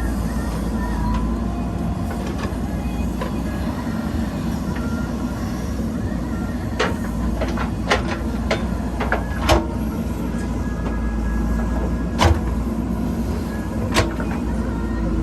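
JCB 3DX backhoe loader's diesel engine running steadily, with a handful of sharp metallic knocks in the second half, the loudest about twelve seconds in.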